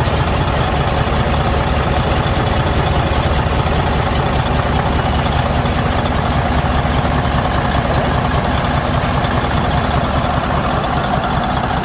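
Detroit DD15 inline-six diesel idling with a loud, fast, even knocking throughout: the noise of damaged internal engine components.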